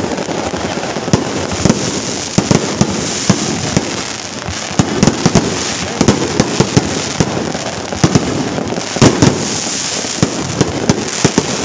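Firecrackers going off in a dense, irregular crackle of many sharp pops a second, with louder single bangs now and then.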